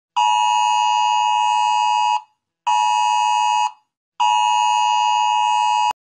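iPhone Wireless Emergency Alert tone: a harsh two-pitch attention signal sounding three times, long, short, then long, with half-second gaps. The last tone is cut off abruptly.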